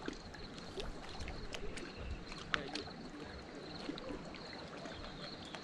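Small waves lapping and splashing against shoreline rocks in a scatter of short wet clicks, over a low wind rumble on the microphone.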